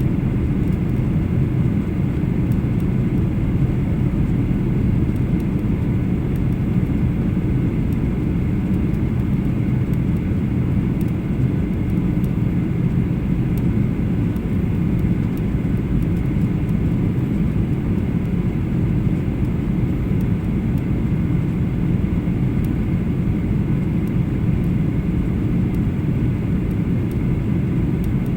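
Boeing 737-800 passenger cabin in flight: a steady low rumble of engines and airflow, unchanging throughout.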